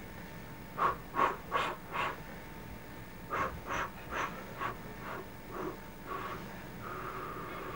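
Baby making short breathy vocal sounds in quick runs, about two or three a second, then a longer drawn-out sound near the end.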